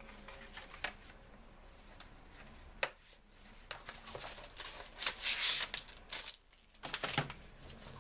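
Cosmetics packaging and a bag being handled: a few sharp clicks and knocks, then a longer spell of rustling and crinkling about five seconds in, with more rustles near the end.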